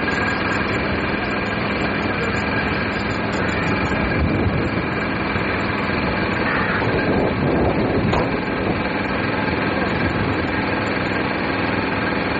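A steady engine drone over a constant rushing noise.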